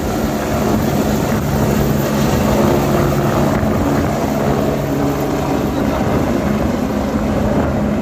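Twin-turbine AgustaWestland AW109 helicopter lifting off and climbing away: loud, steady turbine and rotor noise with a held low hum.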